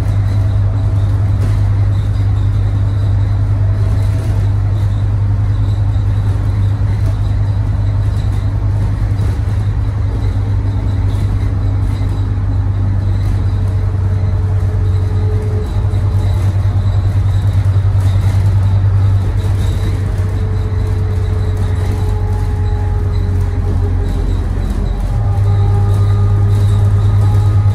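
Inside a 2017 Thomas Saf-T-Liner C2 school bus under way, heard from the back seat: a steady low drone of engine and drivetrain with road noise. The drone dips briefly about halfway through and gets louder about 25 seconds in.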